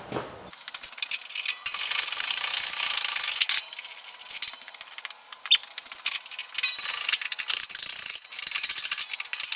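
Hand ratchet wrench clicking in fast runs as bolts are backed out. The runs are busiest about two to three seconds in and again near the end.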